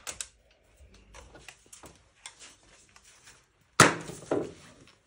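G3-pattern rifle being handled: light clicks and rattles of its parts, then a sharp clack about four seconds in, followed half a second later by a second, softer one.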